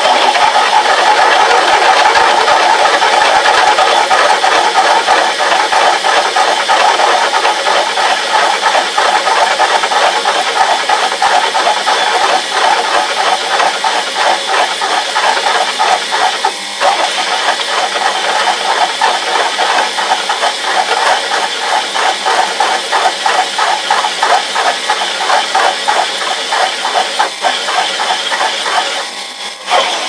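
Drill press driven by a washing-machine motor through a belt, boring a 16 mm twist drill through 10 mm steel plate: steady motor running with the grinding rasp of the bit cutting steel and chips breaking off. The motor is under heavy load at a low speed, and it briefly eases a little past halfway and again near the end.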